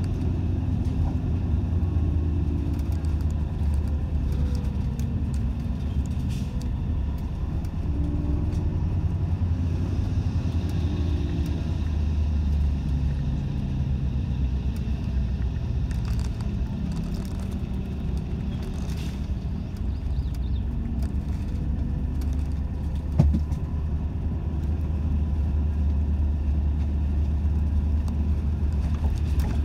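Inside a route bus going downhill on a winding mountain road: a steady low rumble of engine and road noise, with engine tones that rise and fall in pitch. A single sharp knock about 23 seconds in.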